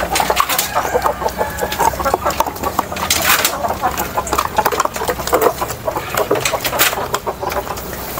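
A group of Bangkok gamecocks and hens clucking as they feed eagerly, with many short clicks and rustles through it.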